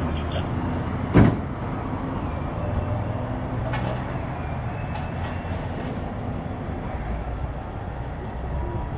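Fire engine's engine running steadily at idle, with one loud thump about a second in and a few light knocks around four to five seconds.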